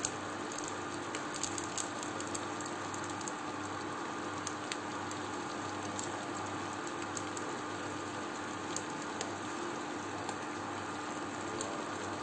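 Pasta with chicken and vegetables sizzling in a nonstick frying pan on an induction hob while a wooden spatula stirs and turns it, giving scattered light scrapes and clicks over a steady hiss and a faint steady hum.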